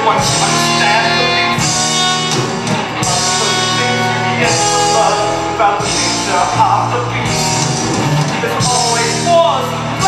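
Rock-style band music from a stage musical, with sustained chords and a steady beat and no sung words.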